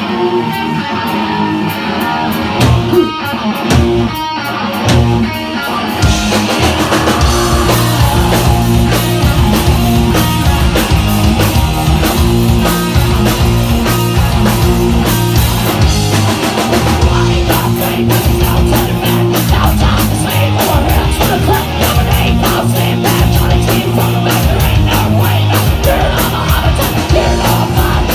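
Live rock band with electric guitars, bass and drums playing an up-tempo rock song. It opens with guitar and a few scattered drum hits, and the full band comes in hard about six seconds in.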